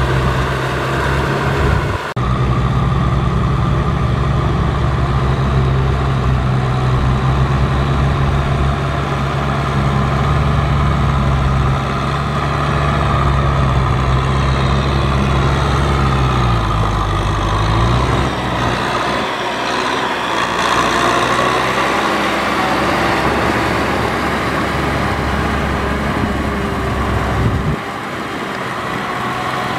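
Kubota M6040SU tractor's diesel engine running steadily under load as it drags a rotary tiller through wet mud, with the tiller churning behind it. The engine note dips and recovers a little past halfway.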